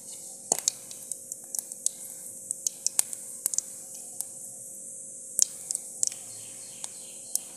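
Cumin seeds sizzling in hot oil in an iron kadhai, crackling with irregular sharp pops, a few a second, over a faint hiss: the cumin frying for the tadka.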